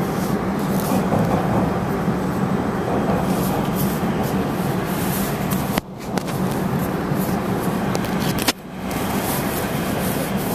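PATH PA-5 subway train running at speed, a steady rumble of wheels and motors with a deep hum. Twice, about six and eight and a half seconds in, the sound cuts out abruptly with a click and then builds back up.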